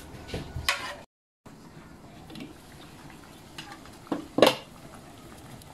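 Cookware clinking against a cooking pot of boiling soup: a few sharp knocks, the loudest two close together about four seconds in.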